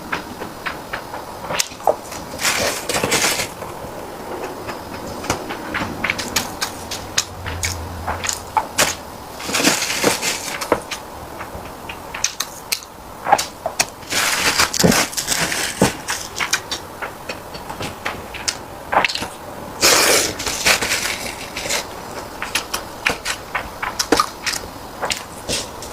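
Close-miked eating: chewing and mouth sounds, with many sharp clicks and smacks and a few longer noisy swells, as sticky rice is chewed.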